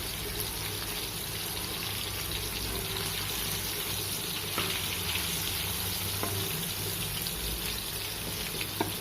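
Masala-coated fish pieces frying in oil on a flat dosa griddle, a steady sizzle over a low flame.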